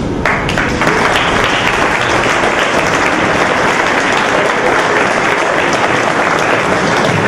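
Audience applauding, a steady wash of many hands clapping that begins right at the start.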